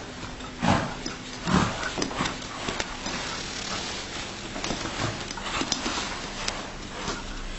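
Two short, loud calls from a pet animal about a second apart, followed by scattered light clicks and scuffling.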